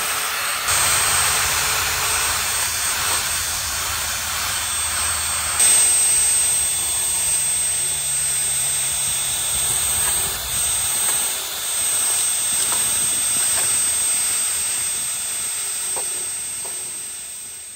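Steady, loud hissing rush, like air or water forced out under pressure, with a thin high whine over it and a low hum underneath. It swells about a second in and again around six seconds in.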